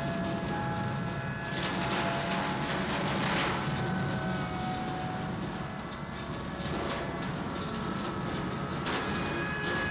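Experimental noise recording from a cassette: a dense low rumble under several steady held tones, with swells of hiss a couple of seconds in and again near the end.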